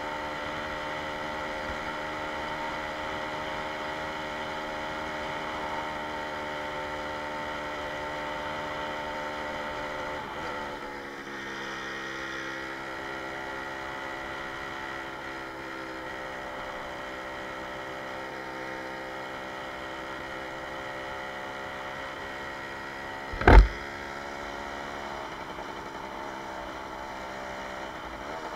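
Jawa 20 Pionýr moped's small two-stroke single-cylinder engine running steadily under way. About ten seconds in the engine note drops and settles at a lower pitch. A single sharp knock, the loudest sound here, comes about five seconds before the end.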